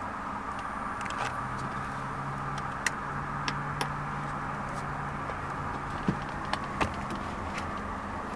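Steady low hum of a 2005 Infiniti G35 Coupe heard from inside its cabin, with a few light clicks and taps scattered through it.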